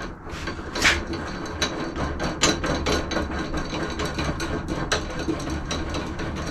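Irregular clicks, knocks and clatter of equipment being handled and set up, over a low steady hum.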